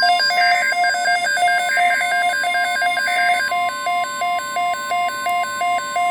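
NOAA Weather Radio SAME data tones: a rapid, rhythmic warble of electronic tones, the coded digital header of an Emergency Alert System message, with the pattern changing about three and a half seconds in.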